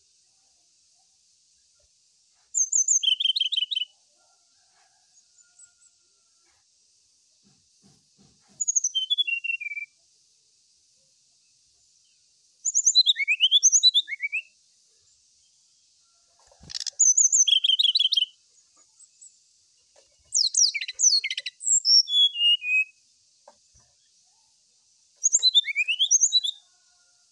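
Brown-chested jungle flycatcher singing: six short phrases, each a second or so long, of quick descending whistles and rapid trills, spaced a few seconds apart.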